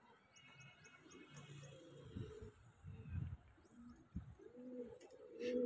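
Domestic pigeons cooing: a series of faint low coos, coming more often in the second half.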